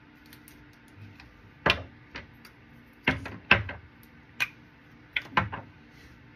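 Makeup containers being handled on a counter: a handful of sharp, irregularly spaced clicks and knocks, the loudest a little past the middle.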